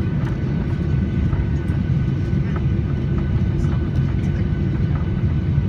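Steady noise inside an airliner's cabin: a low rumble from the engines and airflow, with faint steady high whining tones over it.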